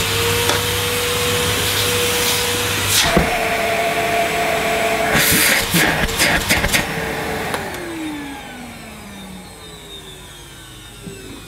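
Hitachi CV-790 bagless vacuum cleaner's 1000-watt motor running with a steady whine, a few sharp knocks sounding in the middle. About seven and a half seconds in it is switched off and takes a long time to wind down, its pitch falling steadily.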